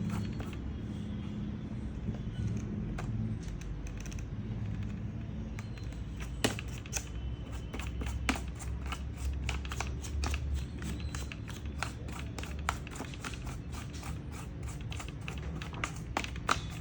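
Ultra-soft toothbrush scrubbing dust off a laptop's internal parts: light, irregular scratching and clicking of bristles flicking against plastic and metal, growing busier after the first few seconds, over a steady low hum.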